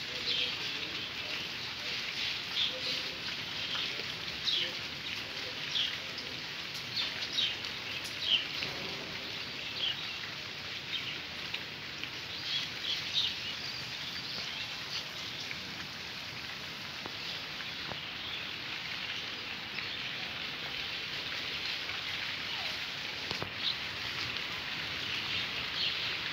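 Steady hiss of rain, with many short high bird chirps scattered over it, thinning out around the middle and picking up again near the end.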